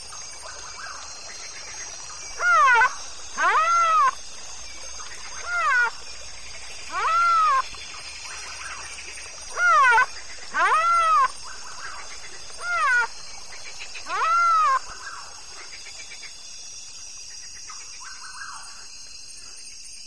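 Plains zebra barking: about eight short, high yelping calls, each rising then falling in pitch, coming in loose pairs a second or two apart, over a steady high background hiss.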